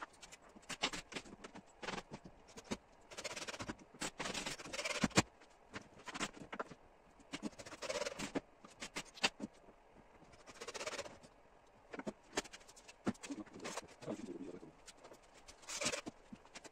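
Hand work on a recliner armchair's frame and metal mechanism: irregular clicks and knocks with short rustling scrapes every few seconds.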